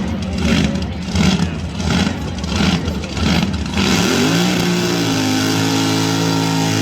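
Car engine revving in repeated surges, then music with long sustained notes takes over about four seconds in.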